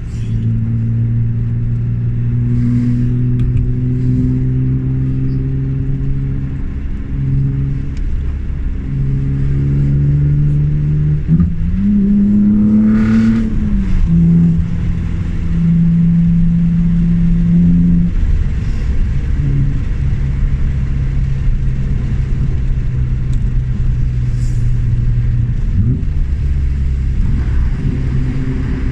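BMW E36 M3's straight-six engine running at fairly steady revs under way, its pitch climbing briefly about halfway through and then falling back.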